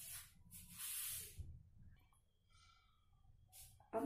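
A faint hiss in the first second and a half. Near the end comes a sharp clink with a brief ring as a small metal tea strainer is set down on a glass tumbler.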